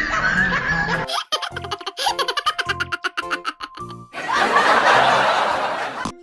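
Edited-in music with a beat, followed by about two seconds of laughter that stops abruptly near the end.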